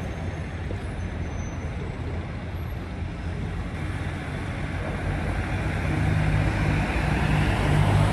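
Road traffic noise with a large vehicle's engine hum. It grows louder over the last few seconds, then cuts off suddenly.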